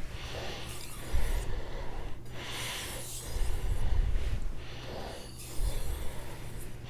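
Shigefusa carbon steel knife blade scraping on a wet whetstone in repeated back-and-forth strokes, each a soft rasp that swells and fades about once a second. These are light-pressure edge-leading strokes at the fine-polishing stage.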